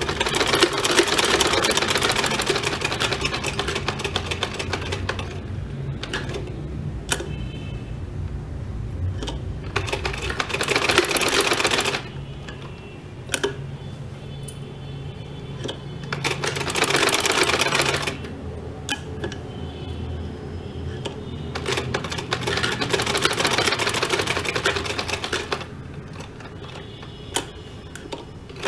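Vintage black domestic sewing machine stitching through cotton fabric. It runs in four spells of a few seconds each, with short pauses between them where the fabric is repositioned and a few clicks are heard.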